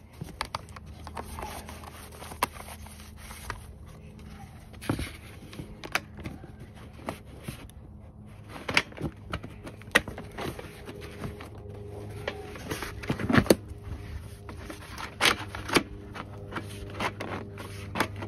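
Handling noise from fitting rubber seal strips onto the edges of an aluminum radiator resting on cardboard: scrapes, rubs and irregular knocks, several sharper ones in the second half, over a steady low hum.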